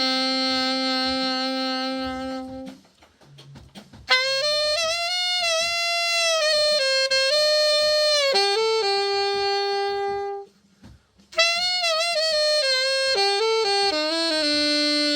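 Selmer Super Action 80 Series II alto saxophone playing a slow melody of long held notes, just after a full overhaul. There are two short breaks in the phrasing, about three and ten seconds in.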